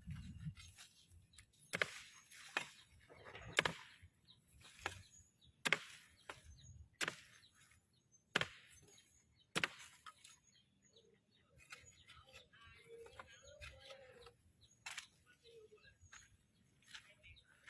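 A series of sharp, irregularly spaced clicks or knocks, about a second or two apart, with a few faint short pitched calls in the later part.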